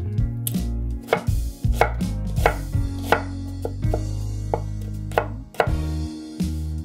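Chef's knife dicing an onion on a wooden cutting board: irregular knocks of the blade striking the board, about two a second.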